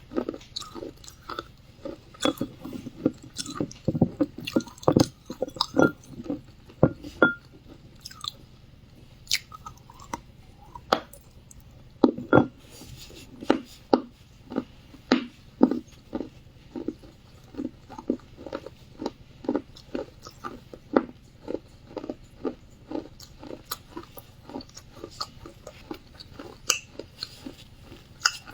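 Close-up chewing of wet clay: a run of sharp, moist crunches with each bite, irregular at first, then settling into a steady rhythm of about two crunches a second.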